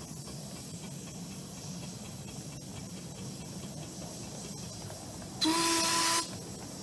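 A railway locomotive's steam whistle gives one short blast, under a second long, about five and a half seconds in, a steady pitched note with a strong hiss over it. It sounds over the steady low running noise and light clicks of the train moving along the track.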